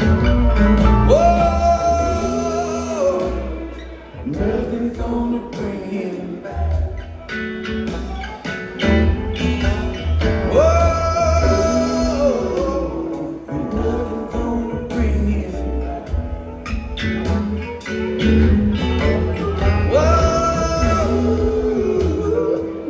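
Live band playing a song with singing over bass, drums and guitar. A sung phrase that rises into a held note comes round about every nine or ten seconds.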